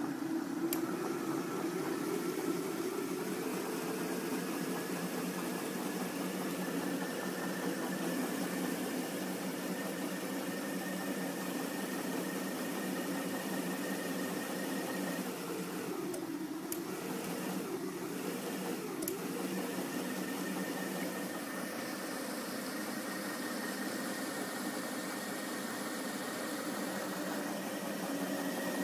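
Small DC electric motor running steadily, turning a ring of spinning foam-wheeled rollers: a continuous whir, its pitch sagging briefly three times about halfway through.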